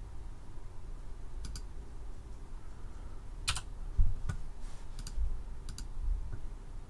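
Computer keyboard keys and mouse clicks: a handful of separate sharp clicks spread over several seconds, the loudest a quick double click about halfway, with a couple of dull low thumps, over a faint steady low hum.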